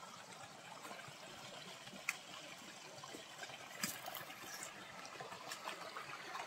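Faint, steady trickle of a shallow stream running over rocks, with a couple of light knocks about two and four seconds in.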